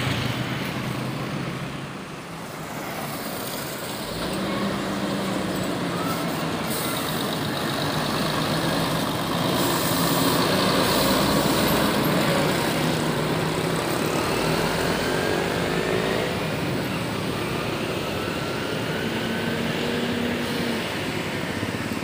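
A Putra Pelangi Mercedes-Benz coach's engine running as it drives past, loudest about halfway through, over general road traffic noise.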